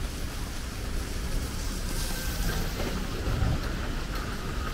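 City street ambience in the rain: a steady wash of traffic and rain hiss, with a low rumble of wind on the microphone.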